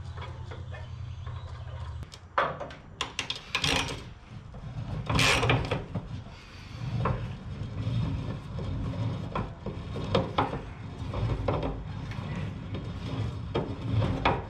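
Socket ratchet clicking and metal clanking as the fuel tank's mounting bolts are worked loose from under the truck. A low steady hum stops about two seconds in, and there is a brief louder rush of noise about five seconds in.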